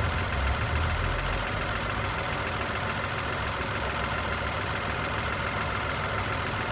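Ford Ka three-cylinder engine idling steadily in neutral.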